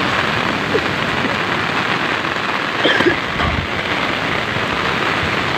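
Heavy rain pouring down steadily in a loud, even hiss. A brief voice cuts in about three seconds in, followed by a low thud.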